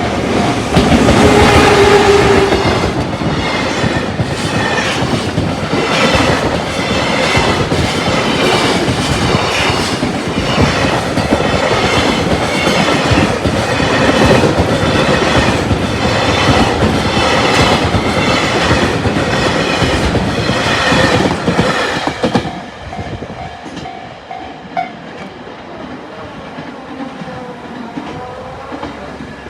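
Freight train passing close by, its wagons' wheels clacking in a steady rhythm over rail joints. About 22 seconds in the last wagon passes and the sound drops away, leaving a level-crossing alarm bell ringing briefly and a fading rumble.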